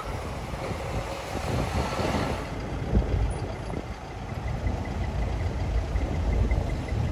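Diesel engines of large decorated trucks running as they drive slowly past and turn in, a steady low rumble. A short hiss comes about two seconds in, and faint, rapid, evenly spaced beeping starts near the end.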